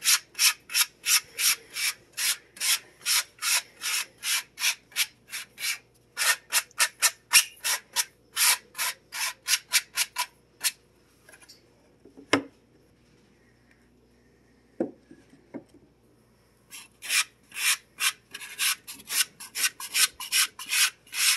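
Small brush scraping back and forth across a stainless steel mesh sifter screen in quick, even strokes, about three a second, gathering sifted powder into a pile. The strokes stop about halfway, with two light knocks, then start again near the end.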